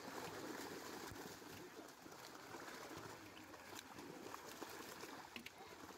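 Faint, continuous splashing and churning of water as a mass of fish thrash at the surface inside a drawn-in seine net, with many small splashes and slaps.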